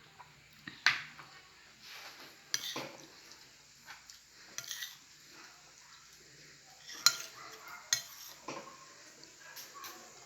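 Spoon clinking and scraping against a bowl as soup is eaten: a few sharp clinks at uneven intervals, with softer scrapes and stirring between them.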